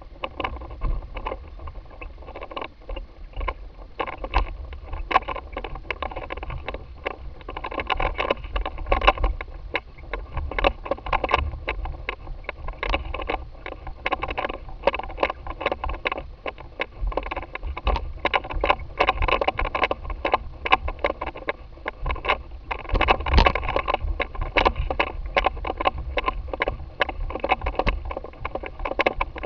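Airflow buffeting a camera mounted on a flying hang glider's wing tip: a constant low wind rumble on the microphone, broken by rapid, irregular crackling and rattling.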